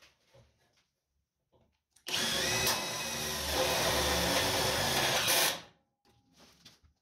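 Electric drill running in one burst of about three and a half seconds, starting about two seconds in and stopping sharply, with faint knocks of handling before and after.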